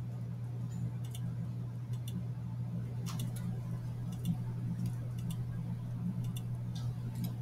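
Computer mouse clicking at irregular intervals, with a steady low hum underneath.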